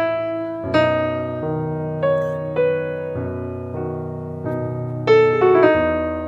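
Background piano music: a slow melody of single notes and chords, each struck and left to fade.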